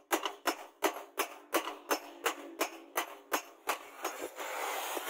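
Hand hammer striking a hot steel cleaver blank on an anvil, about three ringing blows a second, forging the blade. The blows fade near the end as a steady grinding noise from an angle grinder takes over.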